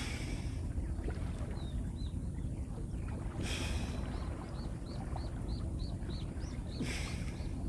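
Steady low rumble of wind and water at sea, with a hissing wash of water three times, every few seconds. In the second half a bird calls in a quick run of short, rising-and-falling chirps, about three a second.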